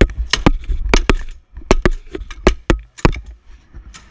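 A quick, irregular run of sharp knocks and clatters, about three a second, each with a dull thud beneath it: tools and car parts being handled and knocked right against the camera during race-car repair work.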